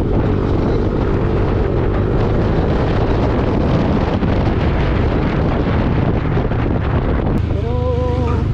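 Heavy wind rumble on the microphone of a Yamaha NMAX scooter riding at road speed, with the scooter's engine and road noise underneath.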